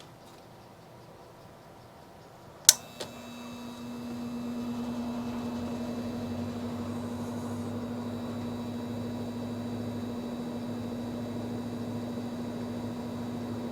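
A switch clicks, then an electric fan's motor starts with a steady hum and its airflow whoosh builds over about a second and a half to a steady run.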